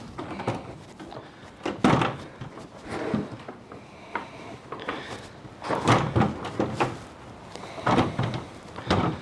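Irregular clusters of wooden knocks and thuds, as boards or offcuts of trim lumber are handled, dropped and knocked about.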